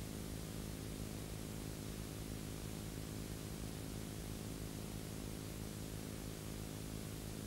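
Steady low hum with an even layer of hiss, unchanging throughout.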